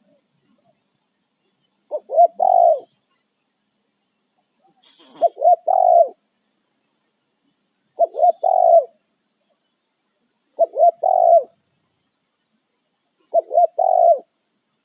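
Spotted dove (tekukur) cooing, calling to other doves: five phrases about three seconds apart, each two short notes followed by a longer one.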